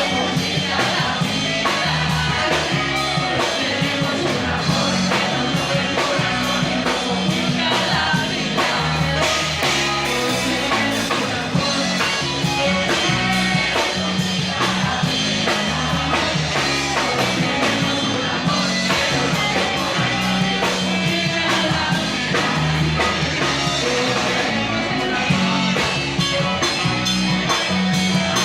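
Live band playing a rock song: a singer over guitar and drums.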